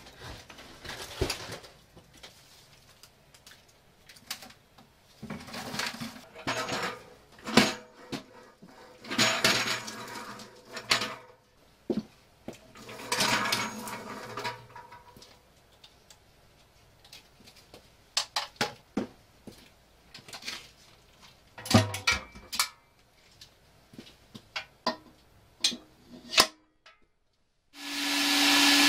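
Scattered knocks, rustles and scrapes of things being handled and moved on a basement floor. About a second before the end, a Nobles SpeeDry wet-pickup vacuum switches on and runs loud and steady, with a humming tone.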